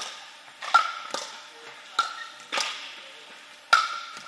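Pickleball rally: paddles hitting a plastic pickleball with sharp, ringing pocks, the three loudest a little over a second apart, with lighter knocks in between. The hits echo in a large indoor court hall.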